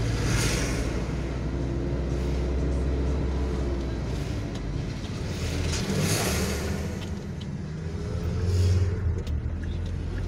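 Car engine and road noise heard from inside the cabin while driving, with oncoming lorries rushing past in swells of noise at the start, about six seconds in and again near nine seconds.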